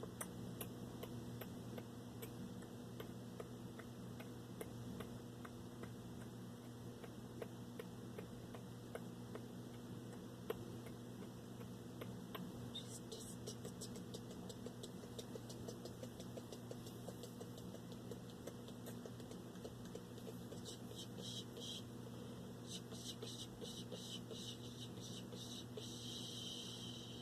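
Soft, breathy close-microphone mouth sounds, whisper-like hisses and breaths, coming in about halfway through and again more densely near the end, over a steady low hum.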